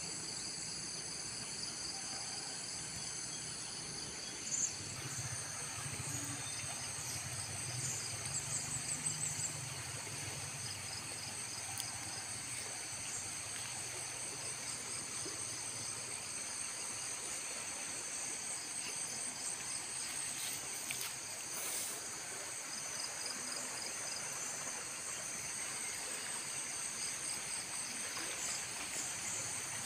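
A steady chorus of insects, several high-pitched tones held without a break, over the low rush of a flowing river.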